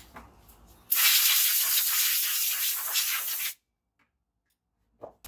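Aerosol spray can sprayed in one continuous hiss of about two and a half seconds, then cutting off abruptly.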